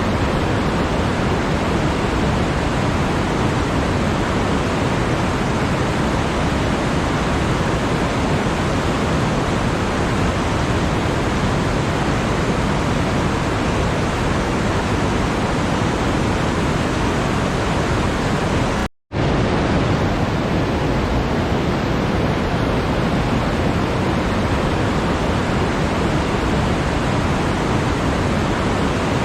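Steady, even rushing noise like pink noise, with no tones or rhythm. It cuts out to silence for a moment about nineteen seconds in, then resumes unchanged.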